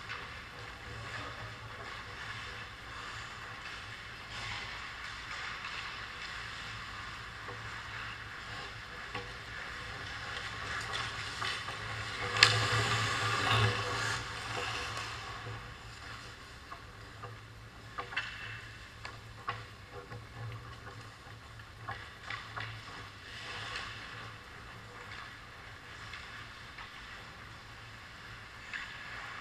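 Ice hockey play close to the goal: skate blades scraping on the ice with scattered sharp clicks of sticks and puck, over a low steady hum. About twelve seconds in comes a sharp crack, the loudest sound, followed by a few seconds of louder skate scraping as players crowd the net.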